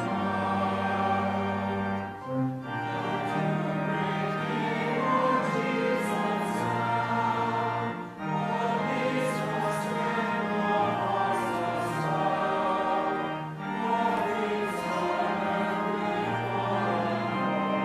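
Choir singing with instrumental accompaniment and held bass notes, in long phrases broken by short pauses about every five to six seconds.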